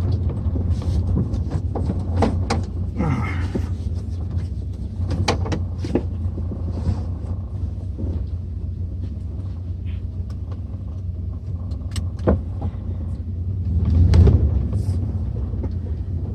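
Pickup truck driving, with a steady low engine and road rumble and scattered knocks and rattles. The rumble swells louder about 14 seconds in.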